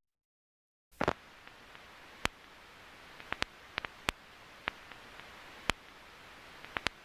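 After about a second of dead silence, a faint steady hiss with irregular sharp clicks and pops, like the crackle of an old film or record.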